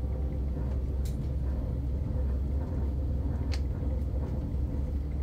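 Steady low rumble and hum of the Vande Bharat Express electric train running, heard inside the chair-car cabin. Two brief faint clicks, about a second in and about three and a half seconds in.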